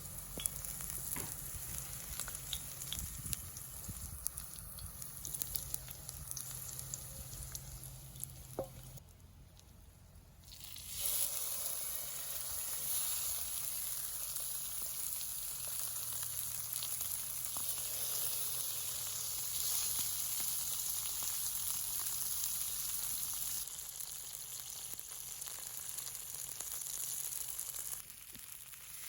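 Food frying in hot oil in a pan, a steady sizzle with small pops; it drops away for a couple of seconds about nine seconds in and comes back louder.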